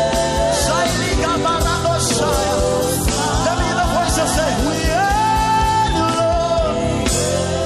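Live gospel worship music: a band with drums, bass and keyboard or guitar plays under a sung melody with melismatic runs.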